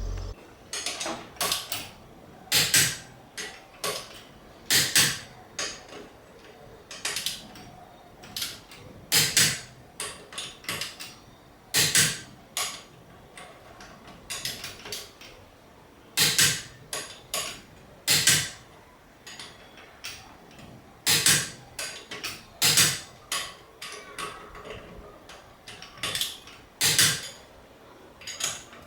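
Torque wrench tightening a car's wheel bolts: a run of sharp metallic clicks at irregular intervals, roughly one every second or so.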